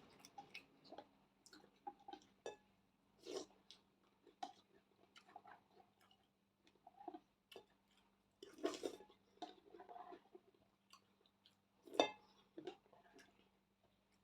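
Close-miked chewing and eating: irregular wet smacks, clicks and bites, the sharpest one about twelve seconds in.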